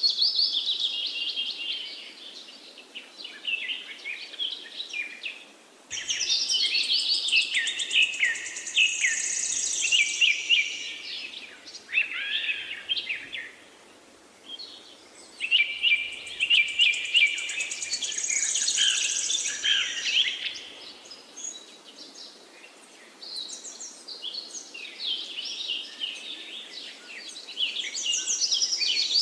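Small songbirds chirping and twittering in quick high-pitched notes and trills, several birds at once, in loud bouts of a few seconds with quieter chirping between.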